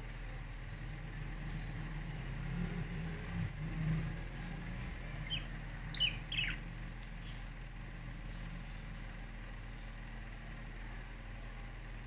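Budgerigars giving a few short, quick chirps that fall in pitch, clustered about five to six seconds in, over a steady low hum.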